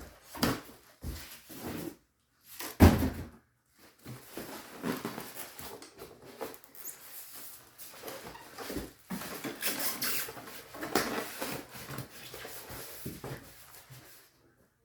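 Unboxing noises: cardboard and packing material rustling and scraping as a boxed belt grinder is worked out of its carton, with scattered knocks and one loud thump about three seconds in.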